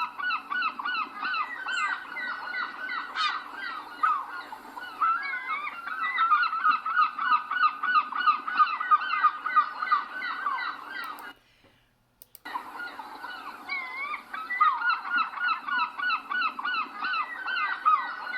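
A group of seabirds calling on a beach, many birds at once: long calls mixed with fast runs of short, repeated notes. The calling stops for about a second roughly eleven seconds in, then starts again.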